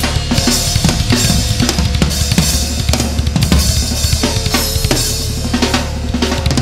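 Funk-rock band recording playing an instrumental stretch: a busy drum kit with kick, snare and cymbals over steady low bass notes, and a wavering guitar-like tone about four seconds in.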